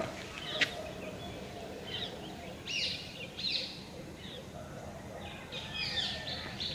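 Birds chirping, with short calls scattered irregularly throughout over a faint steady background.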